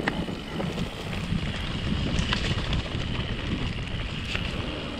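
Wind buffeting an action camera's microphone as a mountain bike descends at speed, over tyre rumble and a few sharp knocks and rattles from the bike.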